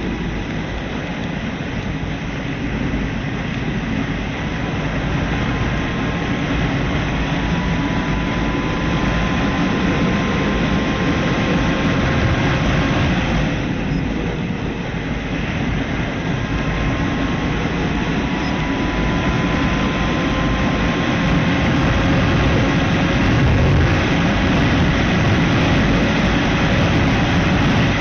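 Motorcycle underway, with heavy wind and road noise over the engine. The engine note climbs slowly, drops off about halfway through, then climbs again.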